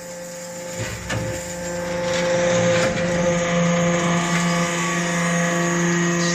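Hydraulic briquetting press for cast iron chips running: a steady machine hum from its motor and hydraulic pump, growing louder about two seconds in, with a few sharp clicks or knocks along the way.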